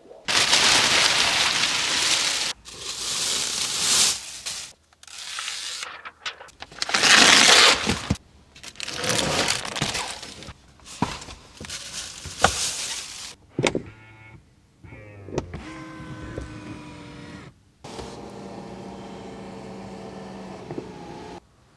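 Protective plastic wrapping being pulled and crinkled off a new Mercedes-Maybach S480, in loud crackling, rustling bursts with sharp snaps. About two-thirds of the way in it turns quieter, with a few clicks and a steady hum.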